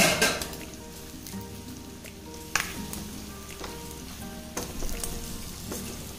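Goat tripe and intestines frying in masala in a steel pan, sizzling loudly at first and then settling to a steady sizzle, with a spatula knocking and scraping against the pan a few times as the boti is stirred.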